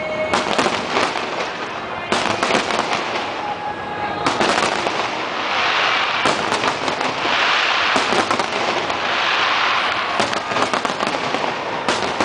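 Large aerial fireworks shells bursting one after another in a steady barrage. The bangs come thickest and run together from about five to ten seconds in.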